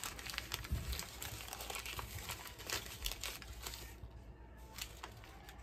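Thin paper wrapping crinkling and rustling as a small wrapped item is unwrapped by hand, dying down after about four seconds.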